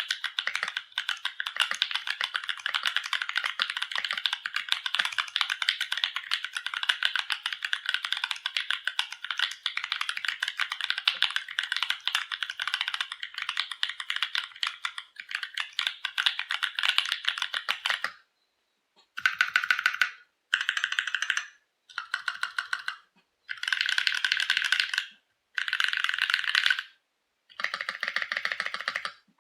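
Typing on a NovelKeys NK65 mechanical keyboard with lubed Durock Koala tactile switches on an aluminium plate, with dye-sub keycaps: a steady stream of rapid key clacks for about eighteen seconds. After that, about six short bursts of rapid key presses, each about a second long, separated by brief pauses.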